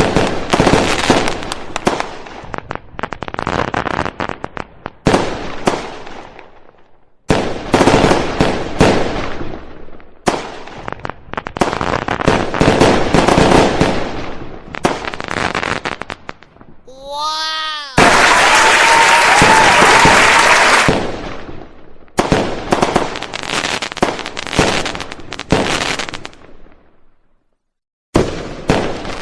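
Fireworks exploding and crackling in a string of loud bursts, broken by abrupt cuts between clips. Just past halfway a pitched whistle sweeps up and down, followed by a few seconds of steady hissing.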